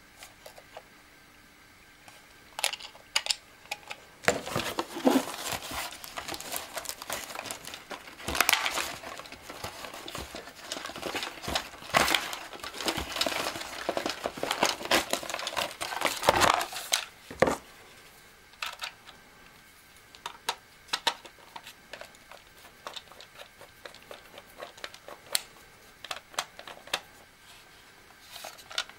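Cardboard packaging rustling and crinkling as a toy RC car is worked free of its display tray, with scattered clicks and taps of plastic. The rustling is dense through the first half, then thins to occasional clicks.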